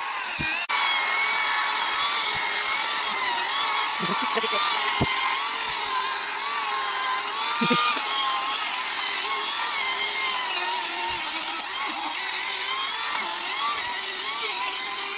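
Electric handheld rotary tool (drill or grinder with an abrasive brush bit) sanding carved birch wood. Its motor whine wavers in pitch as the bit is pressed into and eased off the wood.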